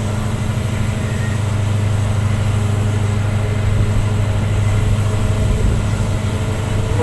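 EMD diesel locomotive running under power with a steady low hum, over the rumble of the moving train.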